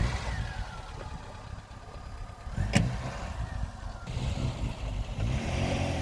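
Tofaş car engine running at low speed while the car is manoeuvred, its revs falling back just after starting. There is a sharp click about three seconds in, and the revs pick up near the end.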